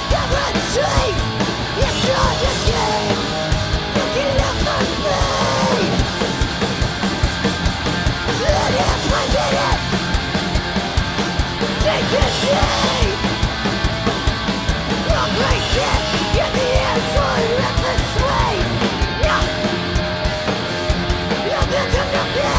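A punk band playing live: electric guitars, bass guitar and drums hit in a dense, fast pattern, with shouted lead vocals over the top.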